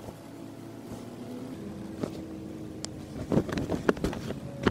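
A steady low motor hum with a few held tones, and blankets being folded, with soft fabric rustles and handling knocks about three to four seconds in.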